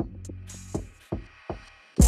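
Background music with an electronic drum beat and bass, thinning out and fading low near the end.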